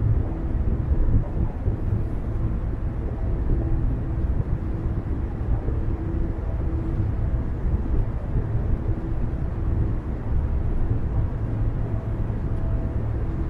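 A car driving: steady low road and engine noise, with a faint hum that comes and goes.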